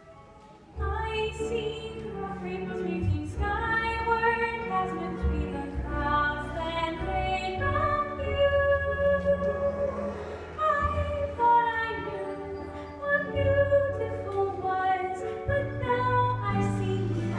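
A female voice singing a song with held notes over instrumental accompaniment, coming in about a second in.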